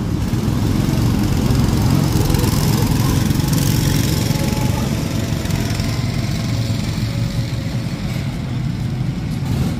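Small gasoline engine running steadily with a low hum, typical of a motorized park ride vehicle such as a go-kart or bumper boat.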